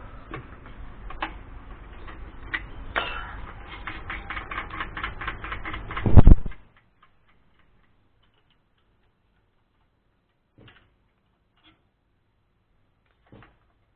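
Metal tools clicking and knocking on the hand pump's iron pipe, quickening to about five or six clicks a second, then one very loud thump about six seconds in. After that it is near silence, with a couple of faint clicks.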